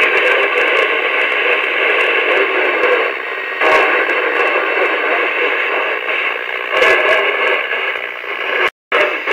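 CB radio receiver putting out a steady static hiss on an open channel between transmissions while receiving long-distance skip. The hiss cuts out for a moment near the end.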